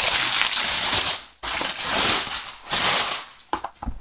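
Plastic packaging rustling and crinkling loudly in rough bursts as the drawing tablet is worked out of it. It dies down into softer crackles and a few clicks near the end.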